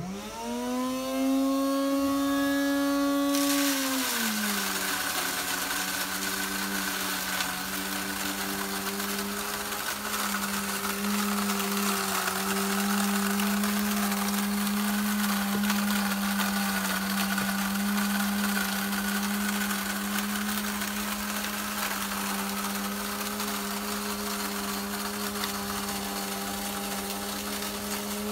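Novital Davide 4V electric grain mill starting up: its motor whines up to speed within a second. About three and a half seconds in, corn kernels are fed into the hopper; a steady rushing, grinding noise joins in and the motor's pitch drops under the load, then holds steady while it grinds.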